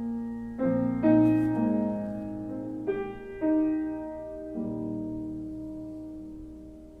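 Background piano music: a few slow, soft chords struck and left ringing, fading out toward the end.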